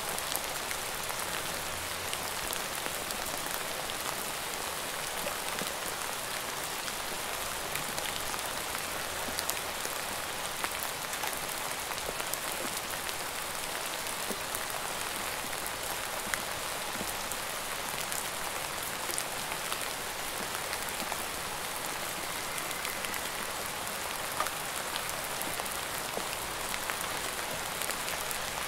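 Steady rainfall: an even hiss of rain with scattered sharper ticks of single drops landing.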